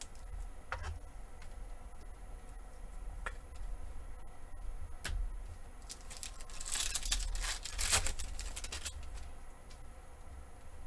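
Plastic foil trading-card pack being torn open and crinkled by hand, with a few light clicks and taps of card handling. The rustle of the wrapper comes most strongly about two-thirds of the way in.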